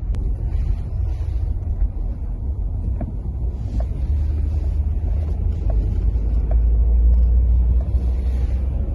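A car driving on the road, heard from inside the cabin as a steady low rumble of engine and tyres that grows a little louder about halfway through.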